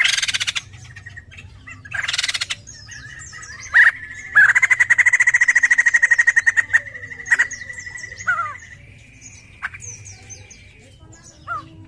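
White-crested laughingthrush (poksay jambul) calling: two short harsh chattering bursts, then a long fast rattling trill lasting about four seconds, ending in a thinner held note with scattered short whistles.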